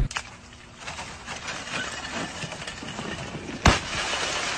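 A tall column of ice frozen down a building wall is pried loose and falls. Faint cracking and knocking come first, then one sudden loud crash as it hits the pavement a little more than three and a half seconds in, followed by ice shattering and sliding.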